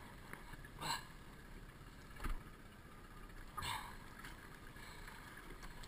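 Small waves slapping and lapping against the hull of a small aluminium boat, with one sharp knock a little after two seconds in.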